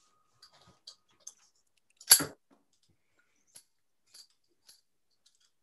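Faint clicks and rustles of flower stems and leaves being handled, with one louder sharp crack about two seconds in.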